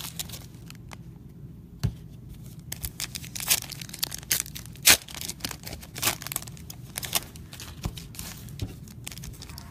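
Shiny foil wrappers of Donruss Optic baseball card packs being torn open and crinkled by hand, with sharp irregular rips and crackles and a short lull about a second in.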